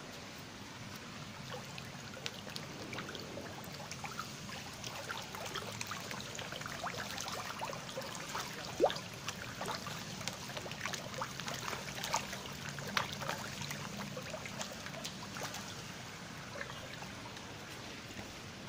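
A crowd of pond fish splashing and churning at the water's surface in a feeding frenzy: a dense patter of small splashes over a steady trickle of water, busiest in the middle and thinning out near the end.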